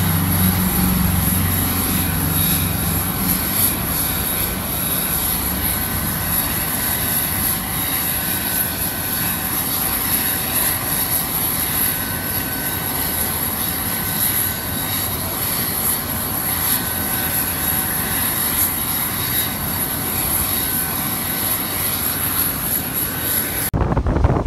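Steady jet turbine noise on an airport ramp: a constant rush with a thin high whine running through it. Just before the end it cuts to wind buffeting the microphone.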